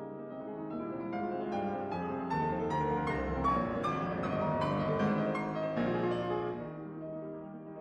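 Background piano music: a run of notes that swells louder and fuller in the middle, then eases off near the end.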